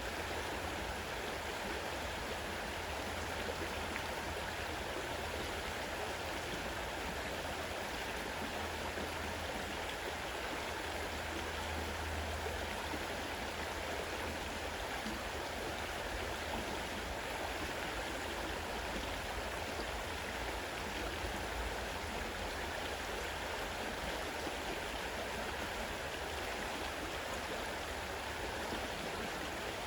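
Fast-running river water rushing over stones in a steady, unbroken flow.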